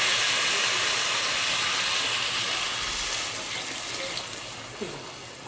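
Water poured into a hot pot of rice and vermicelli fried in ghee and butter, hissing and sizzling, then slowly dying away as the pot cools.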